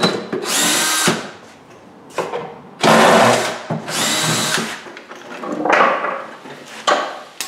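Cordless drill-driver running in several short bursts, backing screws out of a benchtop router table's cabinet to take it apart.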